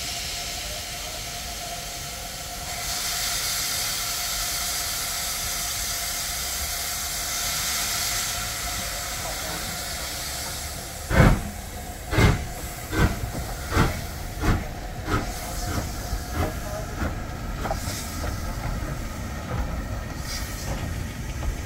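LMS Stanier Black Five 4-6-0 steam locomotive starting its train: steam hisses steadily from the open cylinder drain cocks, then about halfway through the exhaust chuffs begin, loud and about a second apart at first, coming faster and softer as the engine gathers speed.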